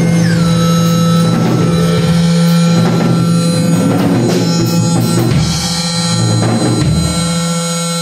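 Korg Monotron Duo analog synthesizer holding a sustained tone, its pitch sliding down about half a second in and then staying level, over a Pearl drum kit played with scattered drum and cymbal strokes.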